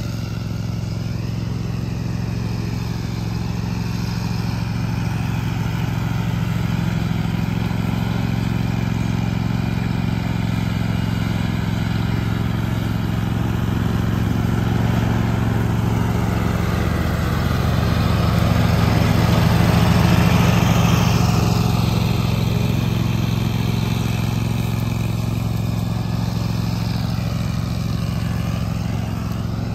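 Toro zero-turn riding mower running steadily while it cuts grass, a continuous engine hum that grows louder about two-thirds of the way through as the mower passes close, then eases back.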